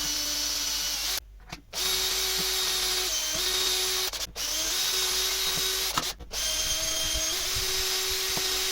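Electric drill boring dowel holes through a doweling jig. The drill runs in four spells separated by short stops, its pitch shifting slightly as it works.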